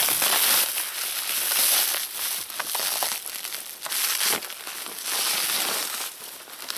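Black plastic sheeting and bubble wrap crinkling and rustling as a parcel's wrapping is cut and pulled open by hand, with scattered short crackles.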